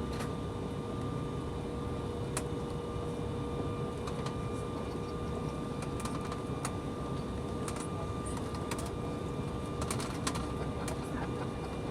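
Steady hum inside the cabin of an Embraer ERJ-175LR regional jet, with a constant mid-pitched tone running through it. Scattered light clicks and rattles are heard every couple of seconds, a few close together about ten seconds in.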